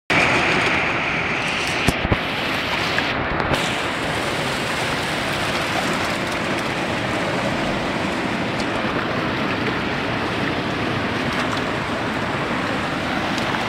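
Fast-flowing mountain stream rushing through rapids over boulders: a loud, steady rush of water, with a couple of brief clicks about two seconds in.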